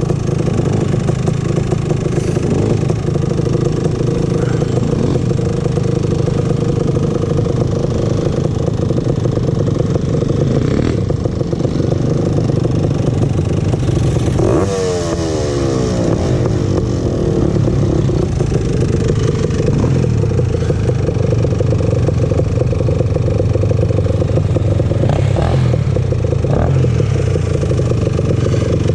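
Honda TRX250R ATV's two-stroke single-cylinder engine running steadily while riding, with a brief falling sweep in pitch about halfway through.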